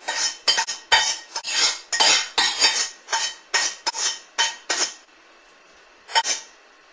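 A utensil scraping and clanking against a metal cooking pot as ramen noodles are scraped out of it into a bowl: a quick run of strokes, about three a second, that stops about five seconds in, then one more a second later.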